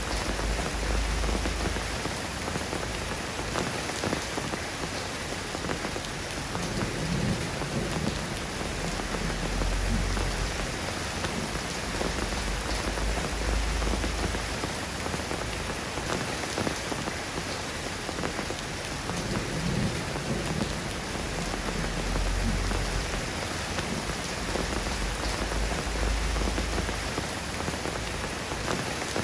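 Steady rain falling on a surface, an even hiss of drops, with low rumbles swelling and fading every few seconds.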